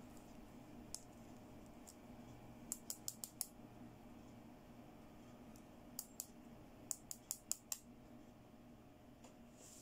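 Small plastic toy hair clips clicking as they are pinched open and snapped shut: a quick run of clicks about three seconds in and another from about six to nearly eight seconds in, faint over a low steady hum.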